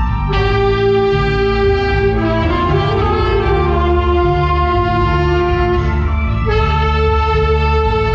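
Saxophone ensemble, mostly alto saxophones, playing slow, held chords together; the chord changes about every two to four seconds.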